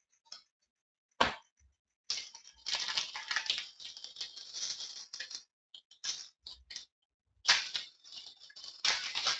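Hockey trading cards being handled and slid past one another: a sharp click about a second in, then bursts of crisp rustling with short pauses.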